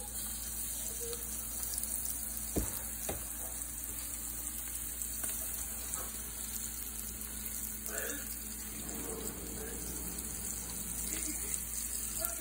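Breaded catfish pieces deep-frying in a pan of hot oil: a steady sizzle and bubbling as more pieces are dropped in, with two sharp clicks about two and a half to three seconds in.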